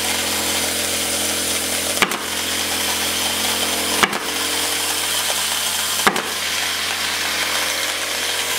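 MEITE ZN-12S pneumatic automatic-feeding decorative tack nailer firing three times, about two seconds apart, driving decorative upholstery tacks into a fabric-covered chair back; each shot is a sharp snap. A steady hum and hiss runs underneath.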